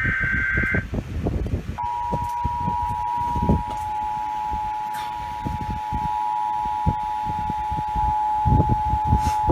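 An Emergency Alert System SAME header data burst, a short warbling two-tone screech, ends about a second in. About a second later the EAS two-tone attention signal starts, 853 and 960 Hz sounding together, and holds steady to the end, announcing a Flash Flood Warning.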